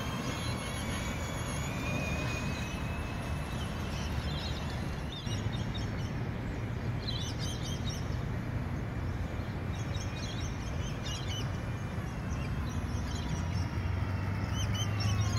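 Outdoor ambience: short bursts of bird chirps every few seconds over a steady low rumble.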